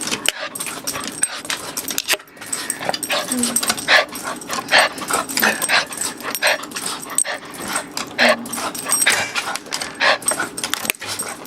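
A small dog yipping and whining over and over, begging for its food.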